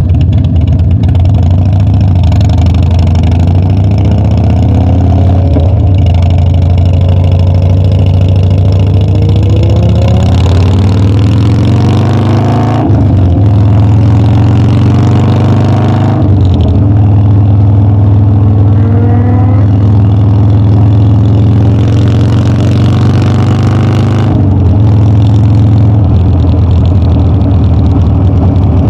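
Harley-Davidson Dyna's V-twin engine running under way, its pitch climbing as the bike pulls through the gears, with three sudden breaks where it changes gear.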